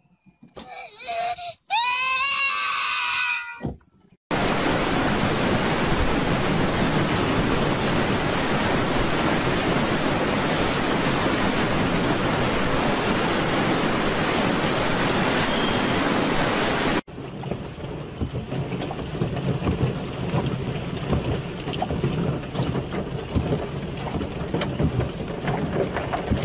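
A small child crying for the first few seconds. Then, after a cut, a loud, steady rush of storm wind and heavy rain for about thirteen seconds. After another cut, a quieter haze of falling hail with many small hits.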